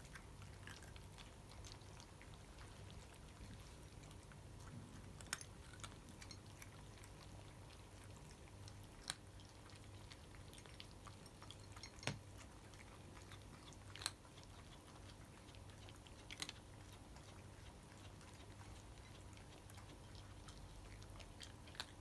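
Cats eating dry kibble: faint crunching, with a handful of sharp clicks spread through.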